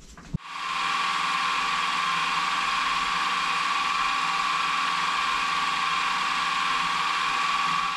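Benchtop milling machine switched on with a click, its spindle running up to speed within about half a second, then running steadily with a high whine while a small drill spot-drills a port in a brass steam-engine frame; it stops at the end.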